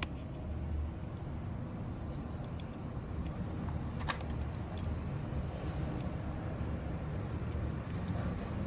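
Steady low rumble of street traffic, with a few sharp small clicks, the loudest right at the start and another about four seconds in.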